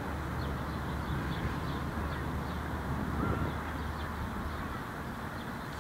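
Outdoor city ambience: a steady low rumble of traffic with faint high bird chirps repeating throughout, and one short clear note about three seconds in.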